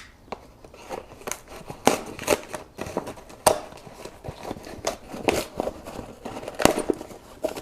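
Shipping package being ripped open and handled by hand: irregular crackling, tearing and crinkling of the packaging, with a sharper snap about three and a half seconds in.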